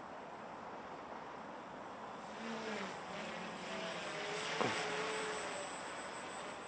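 Walkera Hoten-X quadcopter's brushless motors and propellers whirring in flight. Several tones shift up and down in pitch as it manoeuvres, louder in the middle, with a quick upward sweep about two-thirds of the way through.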